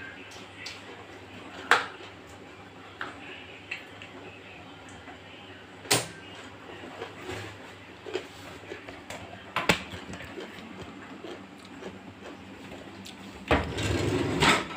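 A few isolated sharp knocks and clicks of kitchen utensils on a granite counter over a low steady background, with a short louder rustling burst near the end.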